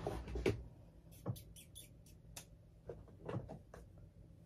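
Makeup products being rummaged through and handled while a highlighter is picked out: a scatter of light clicks and knocks, some sharp and high, cases tapping and being set down.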